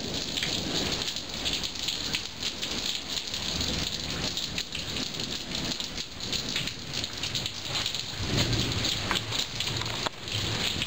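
Heavy monsoon rain falling steadily on a concrete patio and pool, with many close drops ticking. A low rumble of thunder comes about eight seconds in.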